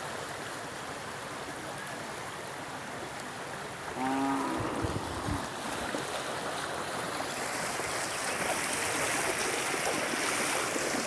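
Floodwater flowing, a steady rush of water that gets louder and brighter from about four seconds in. A brief call from a voice and a few low thumps come at about the same point.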